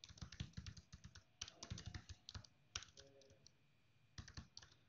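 Faint typing on a computer keyboard: several short runs of keystrokes with pauses between them.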